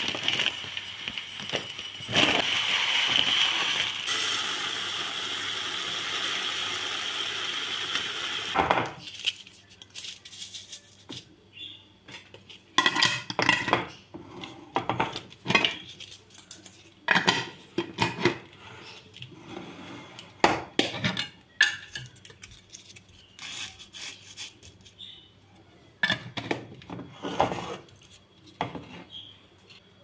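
Dry bulgur poured from a plastic bag into a glass jar makes a steady rushing hiss for about nine seconds, then cuts off. After that come scattered light clinks, taps and plastic rustles as the jar and bag are handled, a bay leaf is dropped in, and the jar's lid is put on near the end.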